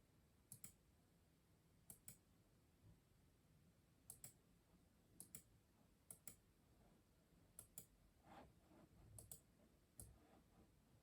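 Custom mechanical keyboard keys pressed slowly, one at a time. Each press is a sharp, close double click, and the presses come about a second apart, with a few softer thuds between them.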